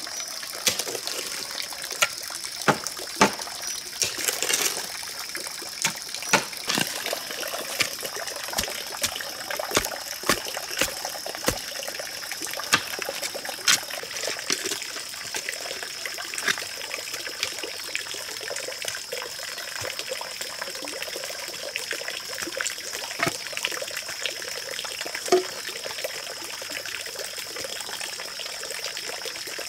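Irregular dull thuds and scrapes of a bamboo pole being jabbed into soil to dig a post hole, frequent at first and thinning out later. Under them runs a steady high-pitched background hiss.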